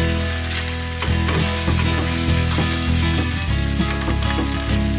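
Sea scallops sizzling in a hot frying pan as they are placed in one at a time. Background music with sustained chords plays underneath.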